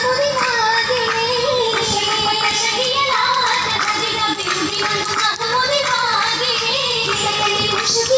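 Oppana song: a Mappila-style melody sung over music, with hand claps.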